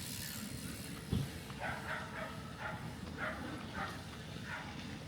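A dog barking in a run of short, evenly spaced barks, about seven in three seconds, over steady outdoor background noise, with a dull thump about a second in.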